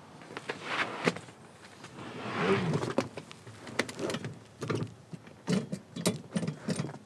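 Rubber floor mats being handled and laid into a truck's footwell: irregular scuffs, rubbing and light knocks as a mat is unfolded and pressed down onto the carpet, with a longer rustle about two and a half seconds in.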